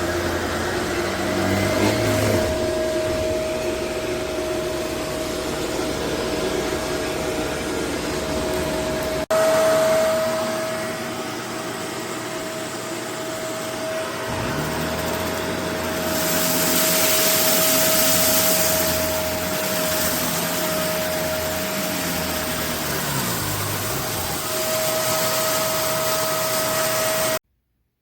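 Upright vacuum cleaner running steadily with a constant motor whine and airflow hiss, swelling louder for a few seconds past the middle. The sound jumps abruptly about a third of the way in and cuts off suddenly just before the end.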